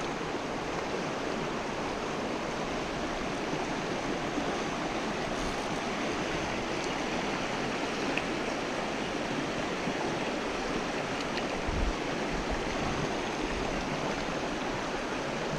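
Shallow, rocky mountain stream running over stones through a riffle: a steady rush of water. One brief dull bump sounds about three-quarters of the way through.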